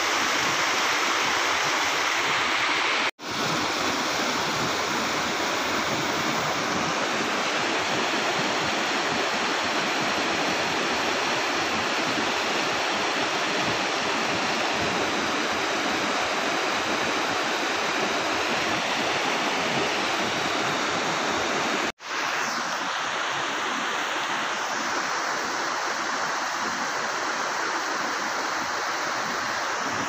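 Steady rush of water from a rocky mountain stream and waterfall. The sound cuts out for an instant twice, about three seconds and about twenty-two seconds in.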